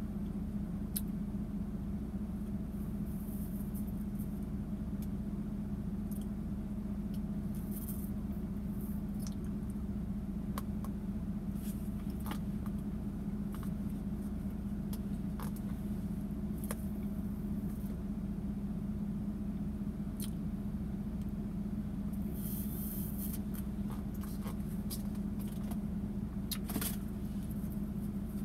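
Steady low hum of a running vehicle heard from inside the cabin, with scattered faint clicks and rustles over it.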